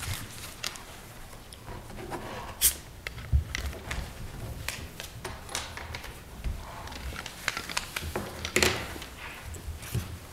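Sheets of paper being handled on a table: irregular rustles, taps and small clicks, with louder rustles about two and a half seconds in and again about eight and a half seconds in.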